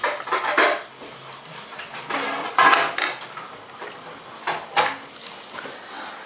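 Eating utensils and a plate clinking and scraping on a table, a few separate short clinks and knocks.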